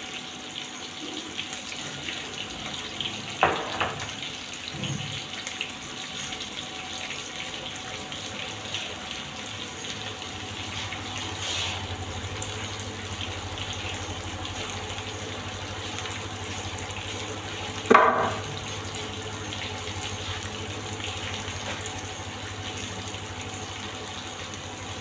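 Sliced onions sizzling steadily in hot oil in a wok, with two sharp knocks, a louder one later on.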